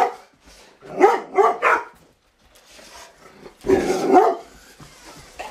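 Rottweiler barking: three quick barks about a second in, then another burst of barking near the end.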